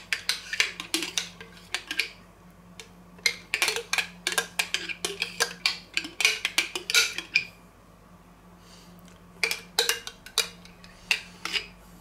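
Metal spoon scraping and clinking inside a mayonnaise jar, scooping out the last of the mayonnaise, in quick runs of small knocks and scrapes with a short pause about two-thirds of the way through.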